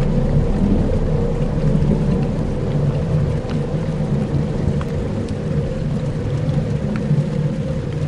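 Dark ambient soundscape: a steady, dense low rumbling drone with held low tones and a few faint scattered crackles, like distant thunder and rain.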